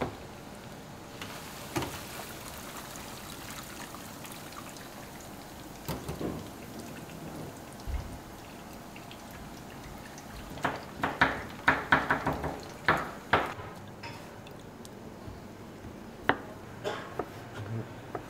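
Cashews frying in a deep fryer, the hot oil bubbling and sizzling steadily. About ten seconds in, a quick run of rattling clatters as the wire fryer basket of fried cashews is lifted and shaken. Near the end, a few knife chops on a cutting board.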